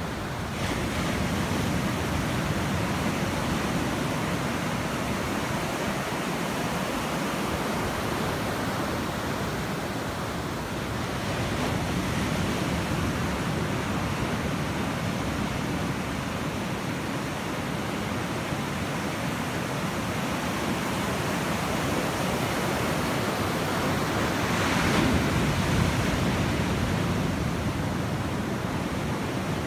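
Ocean surf breaking and washing in, a continuous rush that swells a little before halfway and most strongly near the end.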